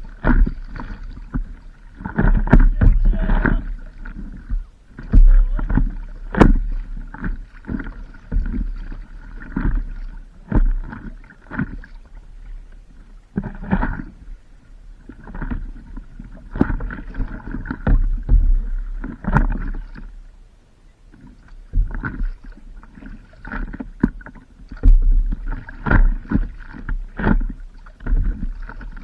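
Paddling on open water from a stand-up paddleboard: irregular splashes and sloshing of water, with wind buffeting the microphone in gusts.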